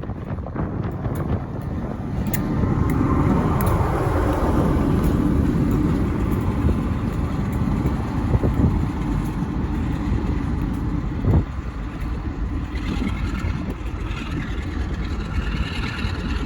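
Class 47 diesel locomotive running light, its engine and wheels building over the first few seconds to a loud, steady rumble, with one sharp knock about eleven seconds in.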